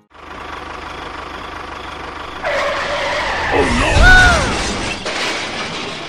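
Dubbed-on tractor engine sound effect chugging steadily, then louder about two and a half seconds in, with a squealing whine that rises and falls and a heavy thump about four seconds in, as of the tractor skidding and lurching into the sand.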